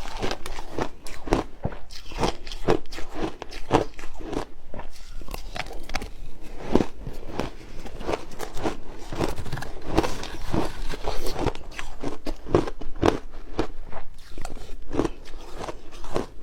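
A person biting and chewing ice: crisp crunches that come irregularly, several a second, with no pause.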